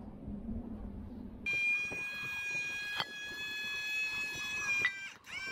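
A high, steady squeal that starts about a second and a half in and holds for about three and a half seconds, with a click partway through. A shorter squeal follows near the end, opening with a quick change in pitch.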